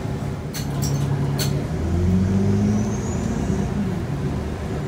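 Interior of a 2009 Nova Bus LFS city bus on the move: the engine and drivetrain drone steadily, with a few sharp rattles in the first second and a half. Around the middle the engine note swells and changes pitch for a couple of seconds, with a short rising whine.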